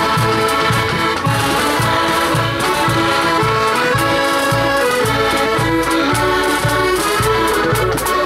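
Marching accordion band playing a tune on piano and button accordions, with a bass drum beating a steady march about twice a second.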